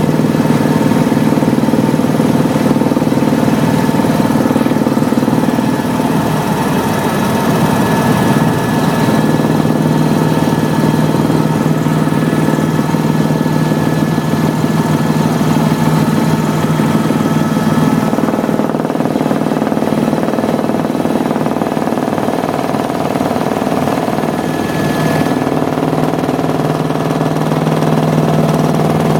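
Helicopter running in level flight, heard from on board: a steady, loud engine and rotor drone. Its low tone shifts slightly about six seconds in and returns near the end.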